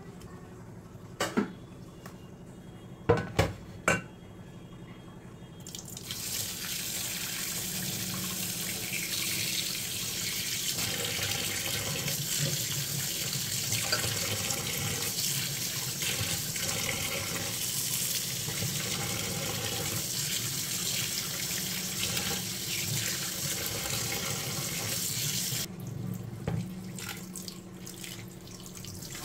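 Kitchen tap running into a stainless steel sink, water splashing over raw meat and fish pieces in a plastic tub as they are rinsed. It comes on about six seconds in, after a few sharp knocks, and the flow cuts off a few seconds before the end.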